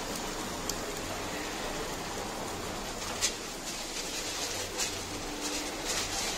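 Steady hiss at a charcoal kokoreç rotisserie grill, with a few sharp clicks and paper sandwich wrappers rustling in the hands near the end.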